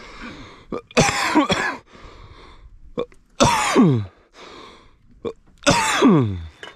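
A person's voice making three harsh, rasping outbursts about two and a half seconds apart, each sliding down in pitch, like coughing.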